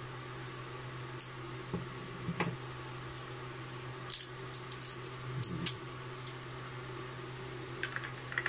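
Scissors snipping a plastic battery blister pack, then scattered clicks and crackles of the plastic as the batteries are worked free and handled. A steady low hum runs underneath.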